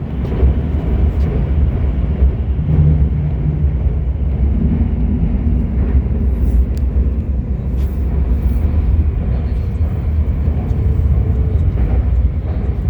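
Guangzhou Metro Line 3 train running, a loud steady low rumble heard from inside the carriage.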